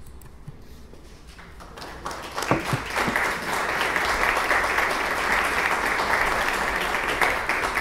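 An audience applauding: a few scattered claps, then steady applause breaks out about two seconds in, builds quickly and holds.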